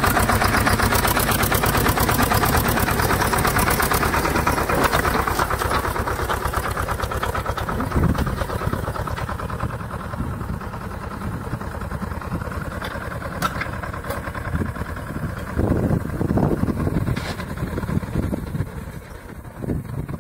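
Swaraj 724 tractor's two-cylinder diesel engine running under load in first gear while it pulls a disc harrow, with a fast, even firing rhythm. Loud and close at first, then further off and duller from about eight seconds in, swelling briefly a few times near the end.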